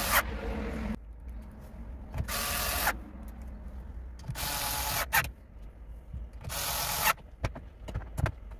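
Bosch cordless screwdriver whirring in short runs of about half a second, driving the screws that fix a car stereo into the dashboard. The end of one run comes at the very start, followed by three more runs spaced about two seconds apart, then a few light clicks near the end.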